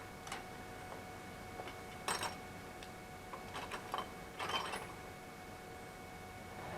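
Steady hum from a Flashforge Adventurer 3 3D printer, with a few scattered clicks and rustles, loudest around two seconds in and again between three and a half and five seconds.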